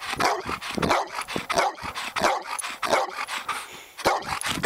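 A dark brown Labrador-type dog barking over and over, about one bark every two-thirds of a second.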